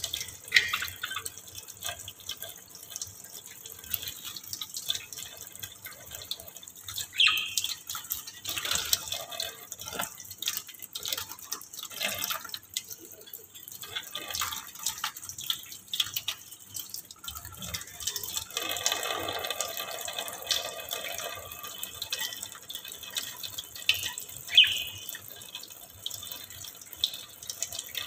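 Thin stream of water from a kitchen faucet running onto a wire birdcage and into a stainless-steel sink, splattering and dripping steadily, with a few louder splashes standing out.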